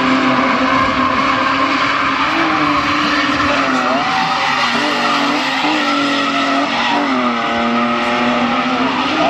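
Two drift cars sliding in tandem: engines held at high revs, their pitch dipping and rising with the throttle several times, over steady tyre squeal.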